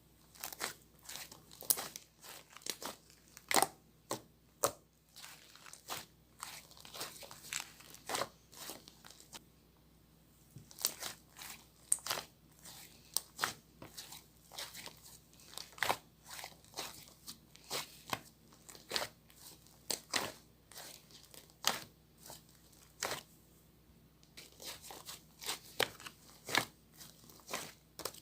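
Fluffy clay slime pressed and stretched by hand, giving irregular crackling and tearing pops, several a second, with two short lulls.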